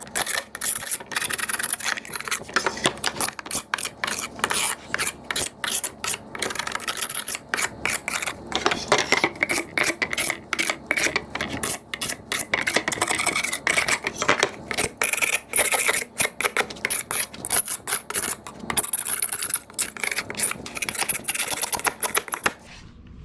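Hand scraper scraping excess dried glue off glued-up wooden panels, in rapid repeated strokes with a high, metallic rasp. The scraping stops just before the end.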